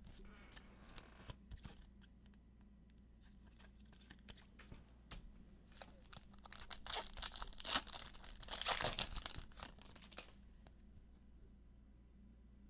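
Trading-card pack wrapper torn open and crinkled, with light clicks of cards being handled. Scattered clicks at first, then a few seconds of tearing and crinkling past the middle.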